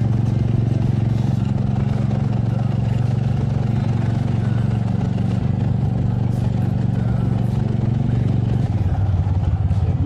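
Motorcycle engine running steadily under way, heard from the rider's position, with its pitch easing off slightly near the end.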